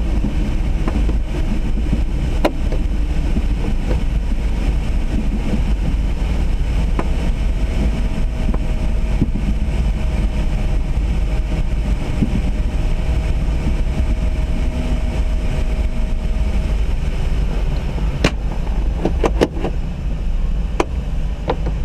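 Steady rush of airflow and wind buffeting on the microphone inside a Duo Discus glider cockpit in flight. A faint steady tone sounds for about ten seconds in the middle, and a few sharp clicks come near the end.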